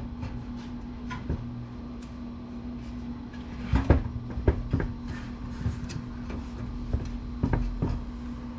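Scattered knocks and clanks of a desktop computer's metal case and parts being handled during disassembly, the loudest a close pair about four seconds in, over a steady low hum.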